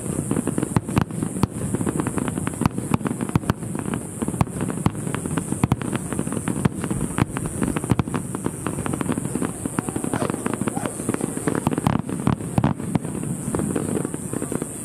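Aerial fireworks bursting and crackling in quick succession: a dense run of sharp pops and bangs, several each second.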